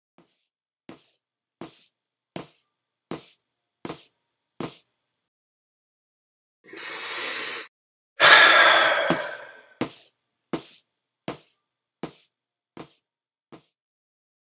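Footsteps at an even walking pace, about one step every three-quarters of a second, stop. A breath in is followed by a long, loud sigh, and then the footsteps start again at the same pace.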